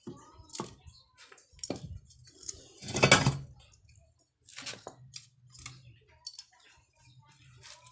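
Scattered metallic clicks and knocks of tools and engine parts being handled during engine reassembly, with one louder clatter about three seconds in.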